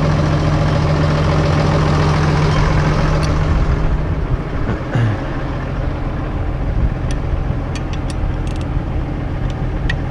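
Case IH Puma CVX tractor engine idling steadily, its low note shifting about halfway through, with a few sharp clicks in the second half.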